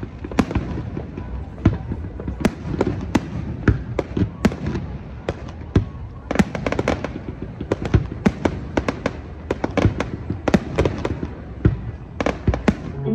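Fireworks going off in quick, irregular succession, many sharp bangs and cracks each second.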